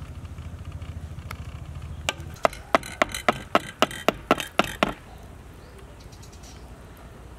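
A quick run of about a dozen sharp knocks, roughly four a second, starting about two seconds in and stopping near the five-second mark, after a low steady rumble that fades out as the knocking begins.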